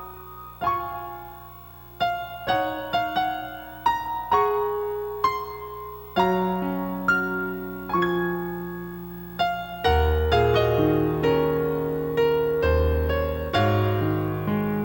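Background piano music, slow single notes at first, then fuller with low bass notes from about two-thirds of the way in.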